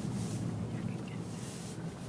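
Steady low rumble of a car's engine and tyres heard from inside the cabin while driving, with a faint hiss from the tyres coming and going.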